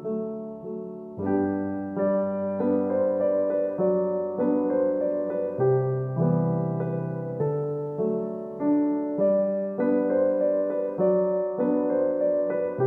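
Background piano music; the playing fills out with fuller chords about a second in.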